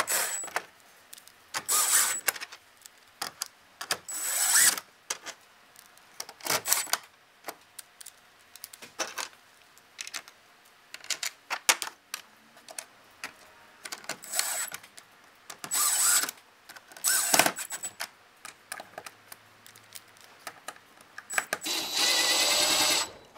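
Cordless drill driving self-tapping screws into a metal rail bar in short bursts, with clicks and clatter of small screws and parts being handled between them. Near the end the drill runs for about a second and a half.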